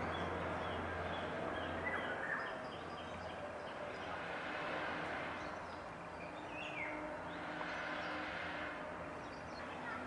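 Outdoor ambience: a steady background hiss with scattered faint bird chirps, and a short downward call about seven seconds in.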